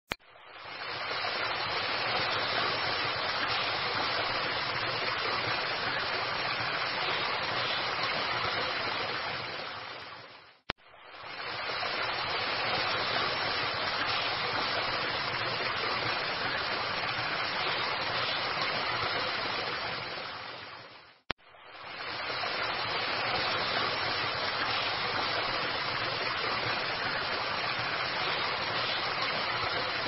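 Steady rush of falling and splashing water, a dense even hiss. It fades out and straight back in twice, in stretches of about ten seconds each.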